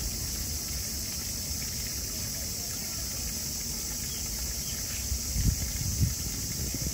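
Outdoor ambience: a steady high-pitched hiss over a low wind rumble on the microphone, with two dull bumps about five and a half and six seconds in.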